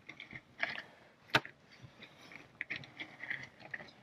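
Scraping and small knocks of stones and clay being dug out, with one sharp knock about a second and a half in.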